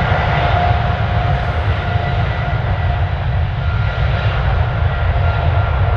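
Boeing 777 jet engines at departure thrust: a loud, steady low rumble with a thin whine on top.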